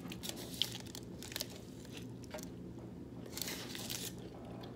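A person chewing food close to the microphone, with scattered soft clicks and crunches, and a brief rustle about three and a half seconds in.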